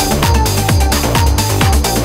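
Electronic dance music with a steady kick drum beat and a short synth note repeating in the upper range.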